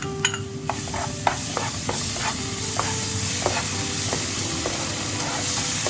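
Onion, tomato and spices frying in hot coconut oil in a pan, a steady sizzle that grows louder about a second in, with a spoon stirring and clicking against the pan now and then.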